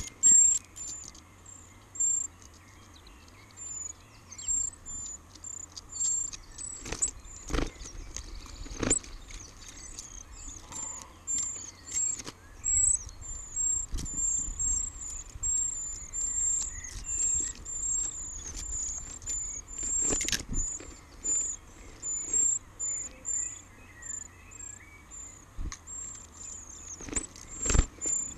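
Eurasian treecreeper nestlings begging at the nest: a stream of short, thin, very high-pitched calls, sparse at first and almost continuous from about halfway through as a parent feeds them. A few sharp knocks close by break in now and then.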